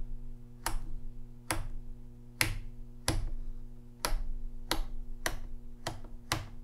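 Rotary selector switch on a B&K Dyna-Jet 707 tube tester being turned by hand through its positions, clicking about nine times at uneven intervals of half a second to a second, over a steady low hum. This is the shorts test, stepping the tube through each switch position.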